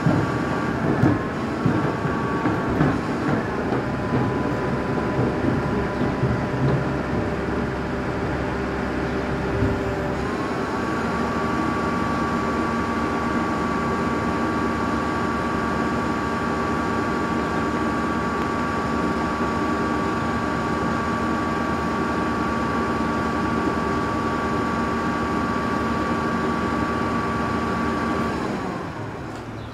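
Rear-loader garbage compactor truck running its hydraulic packer: the engine runs fast with a steady high whine from the hydraulic pump that sets in about a third of the way through and holds until it drops off near the end. There are clanks and knocks of rubbish going into the hopper in the first few seconds.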